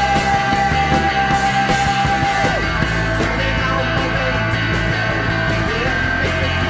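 Rock music, loud and steady, with a long high note held for about two and a half seconds before it drops away.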